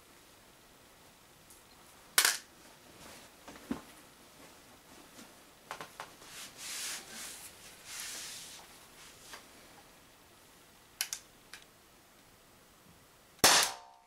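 Umarex HDP50 CO2 pistol firing a .50 calibre aluminium ball into a trap near the end: one loud, sharp shot with a brief ringing after it. Before it come handling clicks and rustling, including one sharp click about two seconds in.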